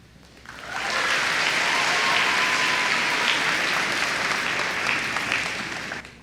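Audience applauding. The clapping swells in about half a second in, holds steady, and dies away near the end.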